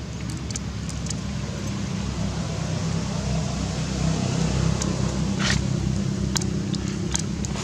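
Low, steady rumbling noise, with a few light clicks and a brief scrape about five and a half seconds in.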